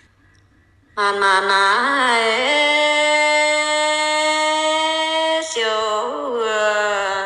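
Iu Mien folk song sung by one unaccompanied voice: about a second in, a phrase rises and settles into a long held note, then drops to a lower phrase near the end.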